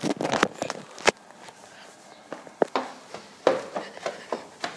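Footsteps of a person walking on a hard platform surface: uneven single steps, with a sharp knock about a second in.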